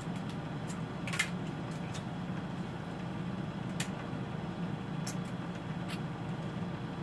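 A few short clicks and smacks of crab being eaten by hand, over a steady low background hum.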